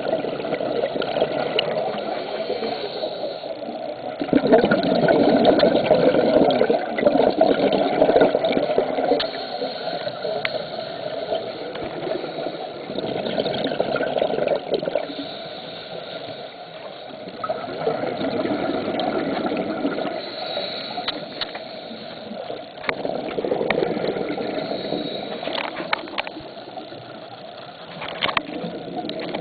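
Scuba breathing underwater, heard through a camera housing: a regulator and rushing exhaled bubbles that swell and fade in surges every few seconds, with a few sharp clicks near the end.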